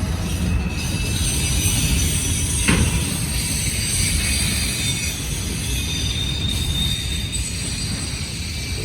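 Long freight train rolling through a tight curve: a steady rumble of the cars on the rails, with high-pitched steady wheel squeal from the flanges grinding on the curve. A single sharp clank sounds about three seconds in.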